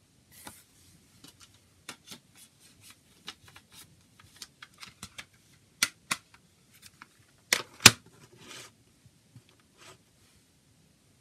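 Hard plastic packaging being handled: crinkling and a string of sharp clicks and knocks. Two louder knocks come about six seconds in, and the loudest pair about eight seconds in, as a shrink-wrapped CD jewel case is handled and set on a table.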